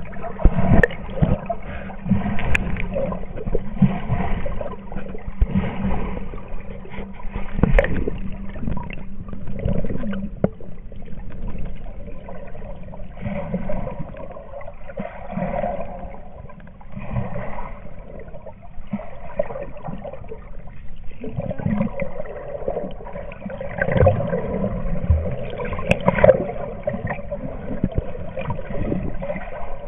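Water sloshing and gurgling around a camera held under the lake surface, with irregular knocks scattered throughout.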